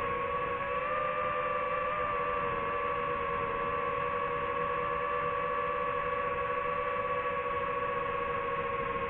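DJI FPV drone's motors and propellers whining at a steady pitch, two close tones with a slight wobble in pitch about a second in.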